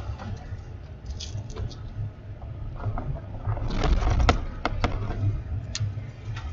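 Vehicle driving, heard from inside the cabin: a steady low rumble with a cluster of sharp knocks and rattles about four to six seconds in.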